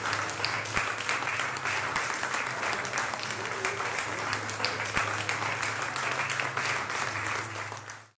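Audience applauding, many hands clapping steadily, fading out near the end.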